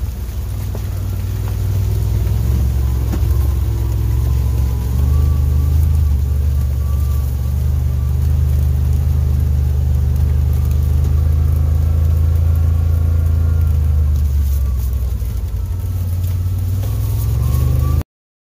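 Side-by-side UTV engine running under way, heard from the cab: a steady low drone with a faint whine that rises and falls with the throttle. It cuts off suddenly near the end.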